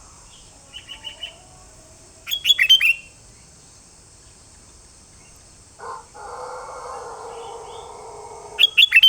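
Sooty-headed bulbul (kutilang) singing: a few soft chirps about a second in, then a short loud phrase of quick, bright whistled notes, and another at the very end. In between, a steady noise runs for about three seconds.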